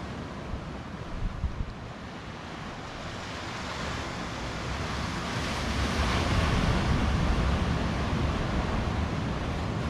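Road and wind noise of a moving car, an even rushing sound that grows louder about halfway through.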